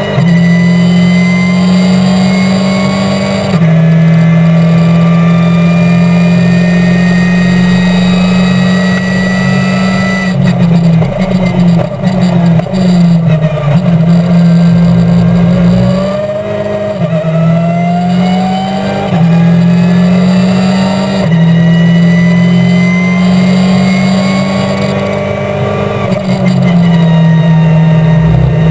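Race car engine heard from inside the cockpit under hard acceleration. It is loud, climbs in pitch through each gear and drops back at gear changes several times, and runs choppier for a few seconds around the middle.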